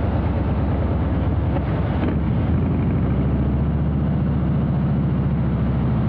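Harley-Davidson Breakout's Milwaukee-Eight 117 V-twin running steadily under way through a Rinehart exhaust, a deep rumble, with wind and tyre hiss from a wet road over it.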